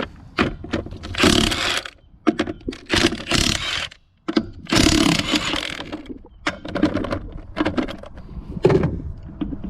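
Impact wrench running in short bursts on wheel lug nuts, loosening them, with sharp knocks in between. There are three main bursts, the last and longest a little under halfway in.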